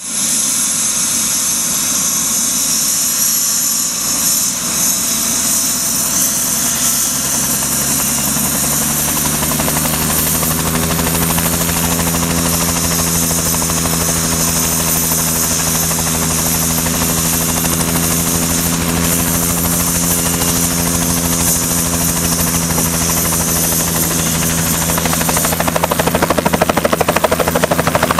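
Bell 206 helicopter running on the ground with its rotor turning: a steady high turbine whine over a low engine and rotor hum. In the last few seconds it grows louder with a fast beating rotor chop as the helicopter lifts off.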